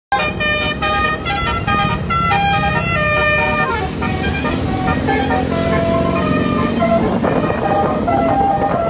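Basuri melodic horn playing a tune, a run of quick stepping notes for about the first four seconds, then slower, longer-held notes, over the low rumble of the vehicle it is fitted to.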